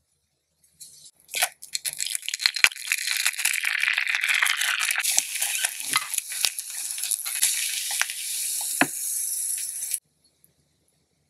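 A small egg frying in oil in a miniature cast-iron pan: a steady crackling sizzle scattered with sharp pops and clicks. It starts about a second in and cuts off suddenly near the end.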